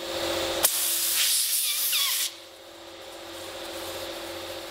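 Compressed air hissing through an air chuck pressed onto a truck tire's valve stem, starting with a click about two-thirds of a second in and cutting off sharply about a second and a half later, with a few short squeaks in the hiss. A low steady hum continues after it.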